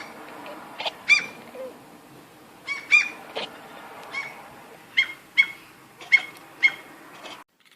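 A cat making strange short, high chirping calls, about ten of them at uneven intervals. The sound cuts off abruptly near the end.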